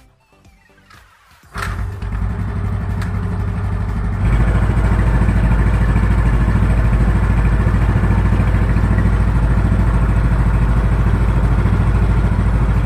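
Yamaha Mio Sporty scooter's small single-cylinder four-stroke engine, running on Meditran SX diesel engine oil, starts up about a second and a half in and settles into a steady, smooth idle. It gets louder about four seconds in.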